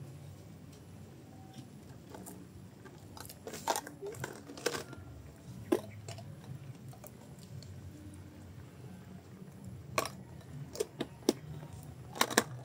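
Scattered clicks, taps and crinkles of small plastic seasoning containers being picked up, opened and handled, in short clusters with gaps between. A steady low rumble runs underneath.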